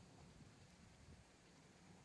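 Near silence: a faint, even low rumble with a light hiss.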